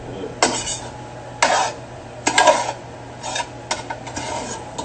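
A utensil scraping and stirring in a cooking pan, in five or six short strokes, with a faint sizzle underneath.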